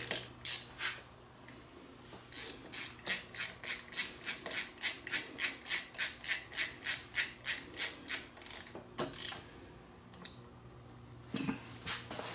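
Hand screwdriver driving a Phillips screw up into a plastic bracket: a run of short rasping strokes, about three a second, for roughly seven seconds, with a few single strokes before and after.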